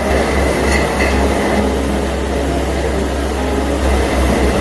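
Bobcat S76 skid-steer loader's diesel engine running under load while its hydraulically driven compost-turner attachment spins, churning and throwing compost. The noise is loud and steady.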